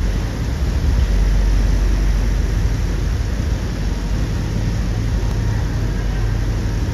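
Staten Island ferry under way: a deep, steady rumble of its engines mixed with a rushing noise of wind and water on the deck.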